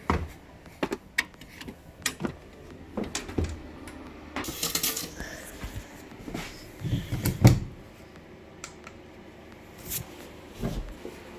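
Scattered clicks, knocks and clatter of objects being handled, with a short rushing hiss about four and a half seconds in and a louder run of knocks a little past halfway.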